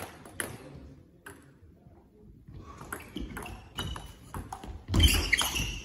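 Table tennis rally: the ball clicking off the bats and bouncing on the table, a few single hits, then a quicker run of ticks, with a louder burst near the end.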